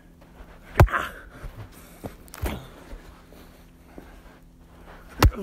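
Heavy axe blows into a hard wooden log stump being split: a loud chopping thud about a second in and another near the end, with a lighter knock between.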